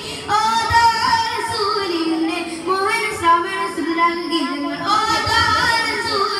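Boys singing a song together into microphones, amplified, with melodic lines and long held notes.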